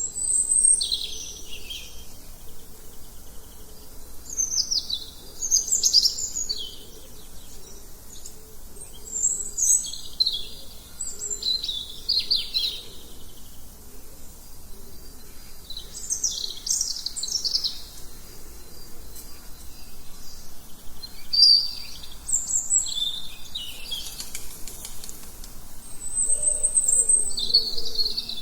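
Songbirds singing in short, high chirping phrases that come every few seconds, with a lower, softer call near the end.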